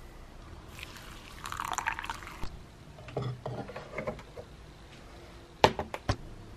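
Water poured into a glass bowl of oat bran, followed by a few bumps from the bowl being handled and two sharp clicks near the end.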